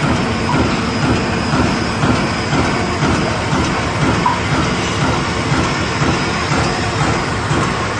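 Roll-fed die-cutting punching machine running and punching foil/PE wad liners, a steady rhythmic mechanical clatter at about two strokes a second.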